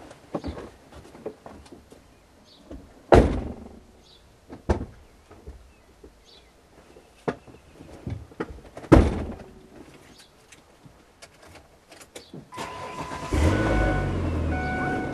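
A car is readied: scattered clicks and two loud thumps, then near the end its engine starts and keeps running, with a short electronic beep repeating over it.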